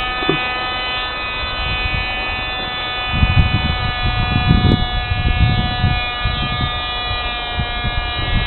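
Small electric motor of a rotating cobweb-removing brush tool running with a steady high whine. Low, uneven rumbling comes and goes over it, heaviest around the middle.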